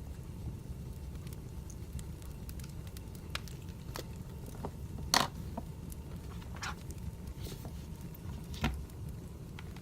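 Wood fire crackling: scattered pops and snaps over a low steady rumble, with two louder pops about five seconds in and near the end.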